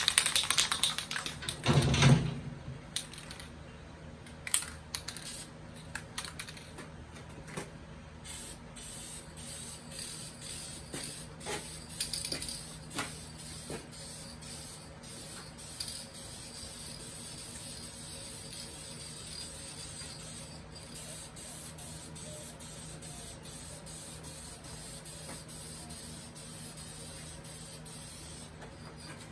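Aerosol spray can spraying paint onto a wooden cabinet rail: a loud flurry of clicks and knocks in the first few seconds as the can is handled, then hissing in short sprays and finally one long steady spray.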